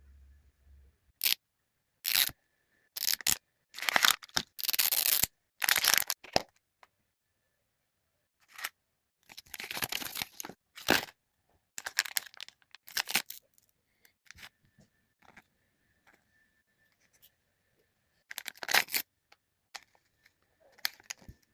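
Packaging being torn open in a series of quick rips and a few longer tears lasting about a second, with gaps of several seconds between.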